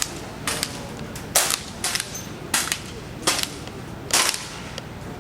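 Several air rifles firing pellets, about seven sharp cracks at uneven intervals from different shooters on the line.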